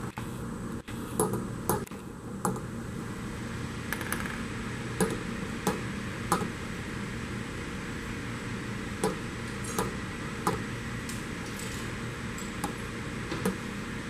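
Light clicks and clinks of wiper rollers being slid down metal studs and dropped onto one another as they are stacked, about a dozen irregular taps over a steady background hum.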